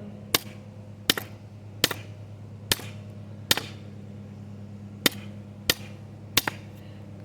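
Blacksmith hammer striking a hot aluminum workpiece by hand: eight sharp blows, about one a second, with a slightly longer pause past the middle. A steady low hum runs underneath.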